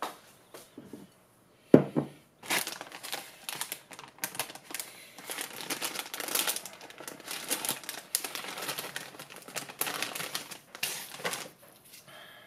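A knock about two seconds in, then several seconds of crinkling and rustling plastic packaging as a packet of hondashi dashi powder is handled and opened.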